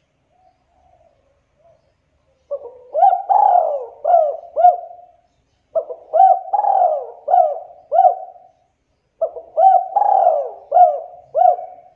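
Spotted dove (tekukur) cooing: three repeated phrases of several arching coo notes each, every phrase lasting about three seconds, preceded by a few faint notes.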